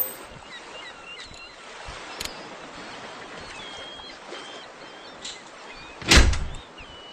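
Steady outdoor background noise with scattered short, high chirps, and one loud thump about six seconds in.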